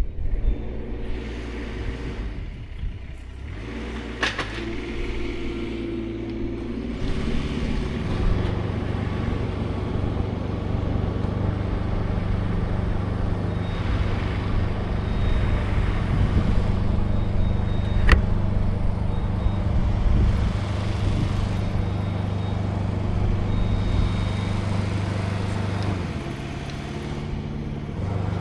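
A large engine running steadily, speeding up about seven seconds in and easing back near the end, with a sharp crack about eighteen seconds in.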